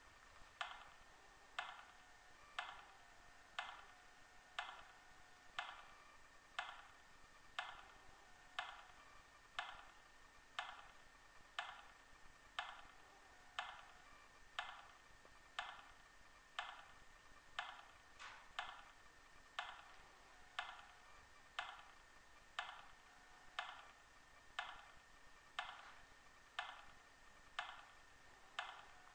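Steady clock-like ticking, about one tick a second, keeping an even beat throughout.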